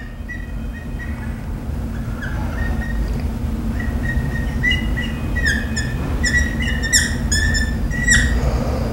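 Pen squeaking against the board's surface while words are handwritten: a run of short, high squeaks that come faster from about four seconds in.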